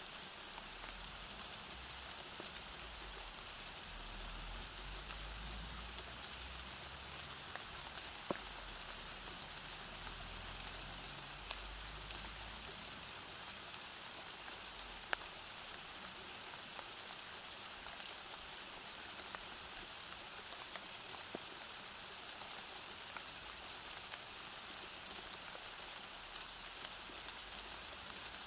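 Steady rain falling as a dense, even hiss, with scattered sharper drop ticks. A low rumble sits underneath for roughly the first twelve seconds, then fades.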